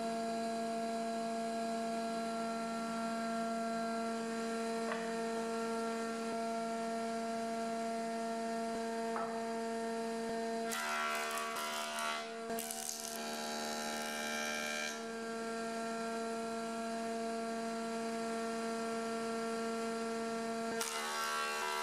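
Woodworking jointer running with a steady motor hum. From about 11 to 15 seconds, and again near the end, the pitch shifts and a rougher cutting noise comes in as a hardwood board is fed across the cutterhead.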